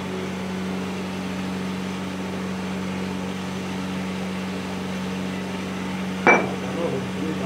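Steady low machine hum, with one sharp metallic knock and brief ring about six seconds in as a tool strikes the sand-casting moulding box.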